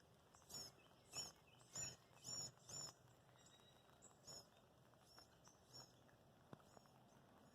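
Faint songbird chirping: a quick series of short, high notes about twice a second, thinning out to a few scattered, fainter notes after about three seconds.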